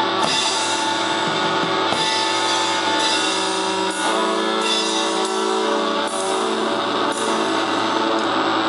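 Live rock band playing: distorted electric guitars and bass holding sustained chords over drums, with several cymbal crashes.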